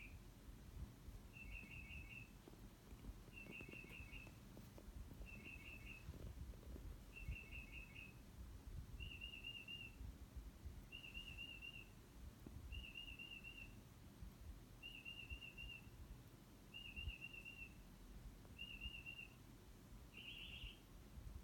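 A bird singing faintly: a short trilled phrase repeated about every two seconds, switching to a different warbled phrase about nine seconds in and to a louder, rougher phrase near the end.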